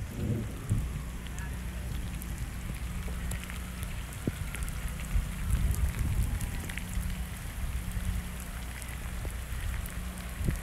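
Rain falling, with scattered sharp drop ticks over a steady low rumble.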